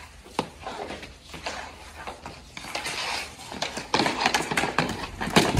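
Hockey skates scraping and carving on a backyard rink, with short clacks of sticks and puck throughout. The sound grows busier toward the end, with a loud bang near the end.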